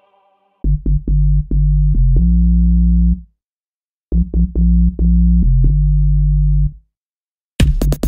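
Electronic background music: synthesizer notes over deep bass with drum-machine hits, in two short phrases broken by abrupt dead silences. A busier, brighter drum pattern comes in near the end.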